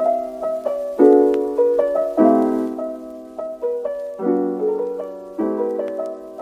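Intro music on piano: chords struck about once a second, each ringing and fading before the next, with a few higher melody notes between them.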